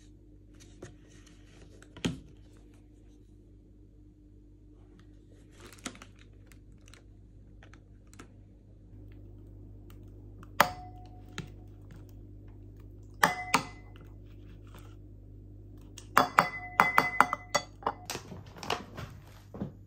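Kitchen handling sounds from a plastic Greek yogurt tub, its lid and a spoon against an enamel bowl on a stone worktop: scattered soft clicks, a couple of sharp knocks with a brief ring, then a quick run of clinks near the end.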